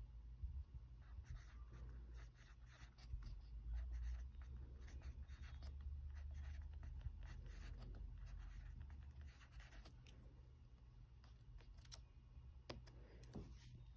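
Faint scratching of a pen on a workbook page, in short repeated strokes as backward jumps are drawn along a number line, with a low rumble underneath.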